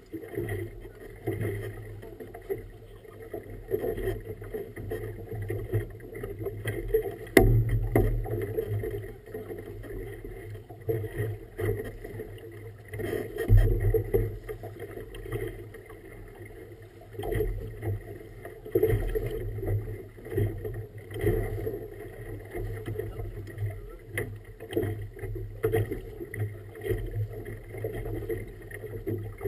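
Motorboat running steadily across choppy river water, with irregular thumps and splashes as the hull meets the waves; two heavier slaps stand out.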